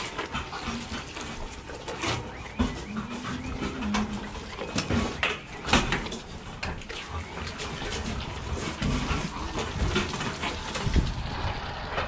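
Calves drinking milk from steel buckets hung on their pen gates, with scattered knocks and clanks of metal.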